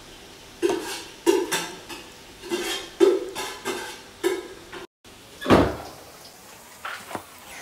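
Metal spoon scraping and clinking against a ceramic plate while spreading a thick yogurt sauce, in a string of short strokes, with a louder knock about five and a half seconds in.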